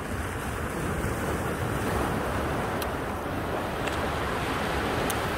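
Small waves washing over a rock shelf at the water's edge, with wind buffeting the microphone: a steady rushing noise. There are a couple of faint ticks about three and five seconds in.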